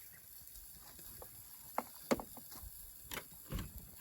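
A few sharp clicks and knocks at irregular intervals, over a faint steady background.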